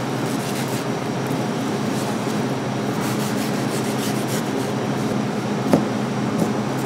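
Steady rasping rub over a low machine hum, with one sharp click near the end.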